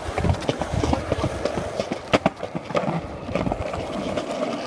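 Several people running on pavement: a quick, irregular patter of footfalls, with a sharper knock about two seconds in.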